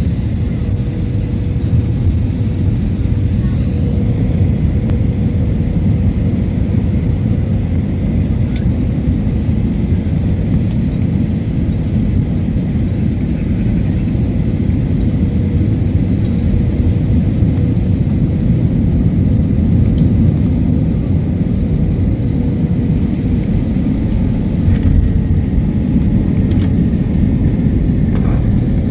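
Steady low rumble of engine and airflow noise inside the passenger cabin of a Boeing 737 on final approach, with a faint steady hum. A thud near the end as the main wheels touch down on the runway.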